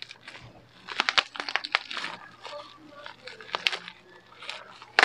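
Bubble-wrap packaging crinkling and crackling as it is pulled and torn open by hand, in irregular sharp crackles with short pauses between them.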